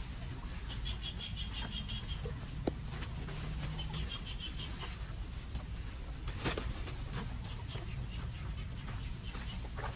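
A bird's rapid high chirping twice in the first half, over a steady low rumble, with a few sharp clicks from debris and a plastic bag being handled.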